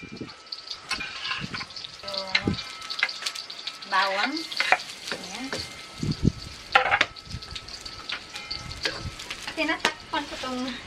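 Onion sizzling in hot oil in a pan as it is sautéed and stirred. Several short squeaky sounds come over the steady sizzle.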